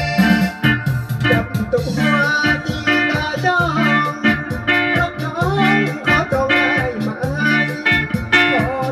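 A small live band playing a Lao song: electric guitar and keyboard over a steady beat and a repeating bass line, with a man singing into a microphone from about two seconds in.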